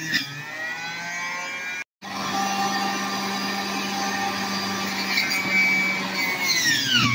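Electric juicer motor whining as produce is pushed down its feed chute. The whine rises in pitch at first, breaks off for a moment about two seconds in, then runs steadily before its pitch sags near the end under the load.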